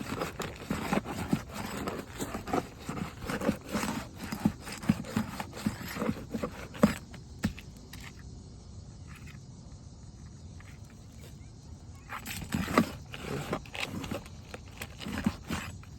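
Irregular scraping, crackling and knocking of a pry tool working under brittle asphalt shingles to unseal them and pull the nails, easing off for a few seconds in the middle before starting again.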